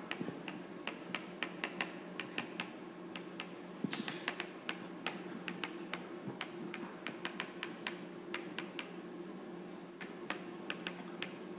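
Faint chalk on a blackboard, tapping out writing in irregular light clicks a few times a second, over a steady low room hum.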